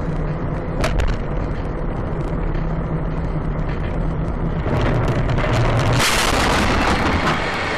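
Car cabin sound on a winter road: steady engine and road drone with a couple of sharp clicks about a second in. About six seconds in comes a loud, harsh burst of noise lasting over a second, the sound of a crash as the dashcam is knocked loose.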